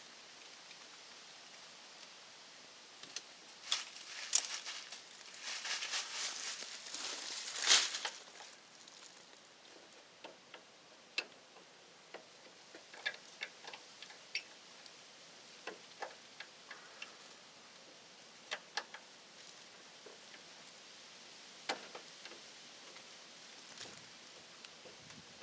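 Hand work on electrical wiring: a burst of rustling and sharp clicks, then scattered light clicks and ticks, like wires and small tools being handled and fitted.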